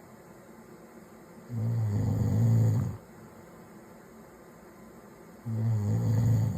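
A man snoring in his sleep: two low-pitched snores about four seconds apart, each lasting a second or so, with quiet breathing between them.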